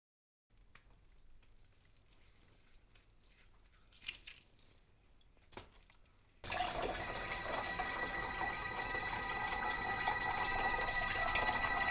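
Faint drip-like sounds, then, about six and a half seconds in, background music of sustained chime-like tones starts and runs on steadily.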